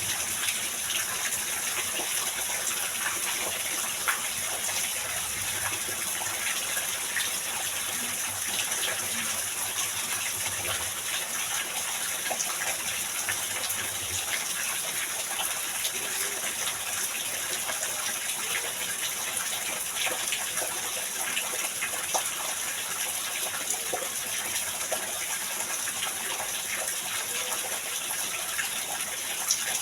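Heavy rain pouring steadily: a dense, even hiss with many small scattered drop ticks.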